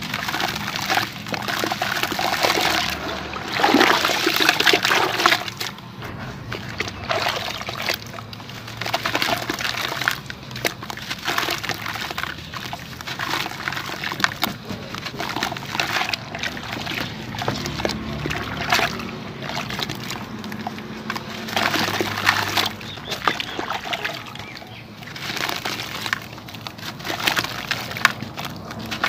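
Hands crumbling sand-cement chunks into a bucket of water: gritty crumbling with sloshing and splashing as the pieces break up and are squeezed under the water, loudest a few seconds in.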